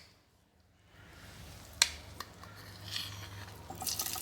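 Hot oil hissing faintly in a frying pan, with two sharp clicks of a utensil against the pan. Near the end the sizzle grows louder as the beaten egg mixture goes into the hot oil.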